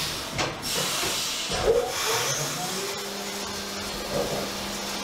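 CNC vertical machining centre cutting an aluminium part under flood coolant: a steady hiss of coolant spraying over the running spindle and cut. A few brief knocks come in the first two seconds, and a steady hum starts about three seconds in.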